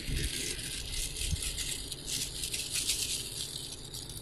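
Metal alligator clips and small connectors rattling and clinking against each other and a clear plastic bag as they are handled and tipped out of it.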